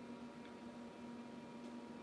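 Quiet room tone: a faint steady hum, with one soft tick about half a second in.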